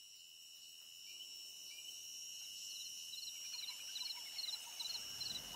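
Faint outdoor ambience of insects fading in: a steady high insect drone, joined from about halfway by short high chirps repeating about twice a second.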